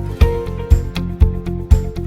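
Background music with a steady beat of about two beats a second and a melody of short notes over it.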